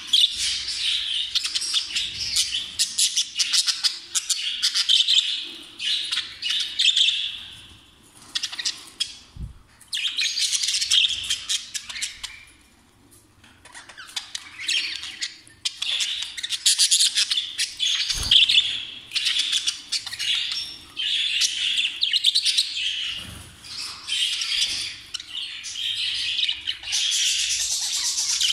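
Several caged jumbo budgerigars chattering together, a dense, fast stream of chirps and warbles that eases off briefly twice in the first half.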